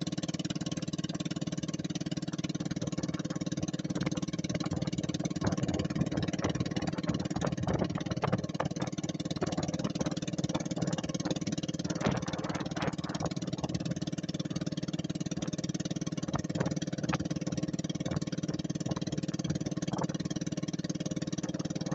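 A small engine running steadily at an even pitch, with irregular clicks and knocks over it.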